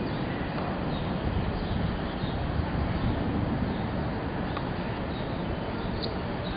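Steady outdoor background noise with a low rumble, and a few faint short high chirps near the end.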